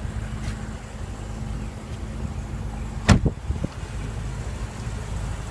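Car hood release and latch being worked: one sharp click about three seconds in, then two softer clicks, over a steady low rumble.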